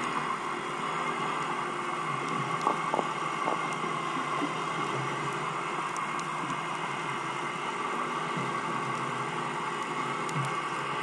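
Underwater ambient noise heard through a GoPro's waterproof housing on the sea floor: a steady hum and hiss, with a few light knocks about three seconds in.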